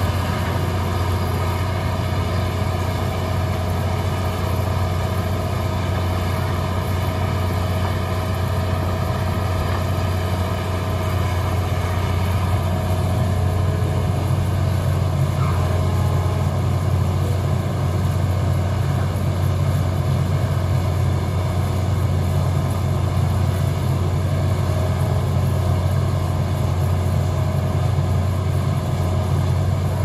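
Hitachi EX200 excavator's diesel engine running steadily with a deep hum while the machine digs and swings its bucket, a little louder from about halfway through.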